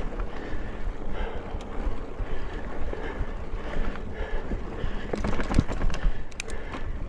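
Mountain bike rolling along dirt singletrack: wind buffeting the handlebar-mounted microphone over the tyres' rumble on the trail. A cluster of sharp rattles and knocks from the bike comes about five seconds in.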